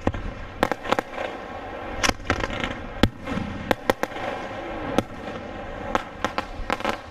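Fireworks display: aerial shells bursting overhead in a string of sharp bangs at irregular intervals, about a dozen in seven seconds.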